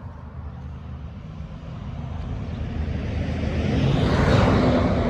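A car passing on a nearby road, its engine and tyre noise building up to a peak about four seconds in and then easing slightly.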